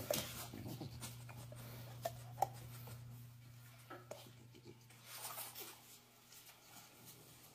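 Faint rustling and scraping with a few light clicks, two of them sharper about two seconds in, over a low steady hum that fades after the first few seconds.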